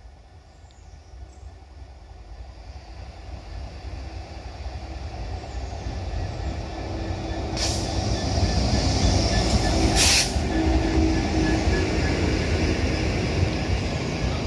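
A diesel freight train approaches and passes: a Class 66 locomotive's engine with the rumble of its covered hopper wagons, growing steadily louder over the first half and then holding loud. Two short sharp hisses come about 7.5 and 10 seconds in.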